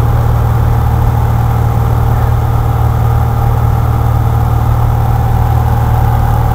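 A single-engine Cessna's piston engine and propeller running at a steady cruise, heard as a loud, unchanging drone inside the cockpit.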